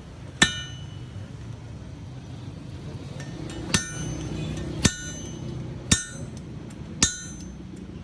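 Hand hammer striking a red-hot steel pickaxe head on an anvil, each blow ringing. One blow comes about half a second in, then after a pause of about three seconds, four more blows come about a second apart.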